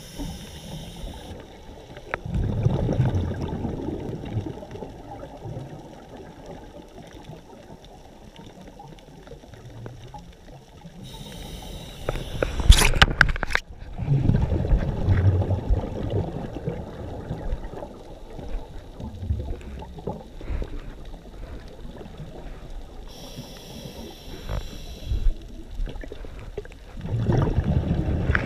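Scuba diver breathing through a regulator underwater: a brief hiss of inhalation, then exhaled bubbles burbling and rumbling, three breaths in all. A few sharp clicks or knocks come about halfway.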